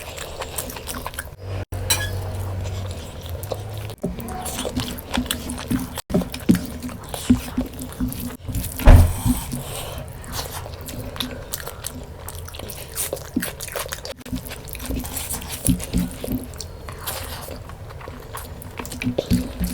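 Close-miked eating of mutton curry and rice: chewing and biting with many small mouth smacks and clicks, and one louder thump about nine seconds in.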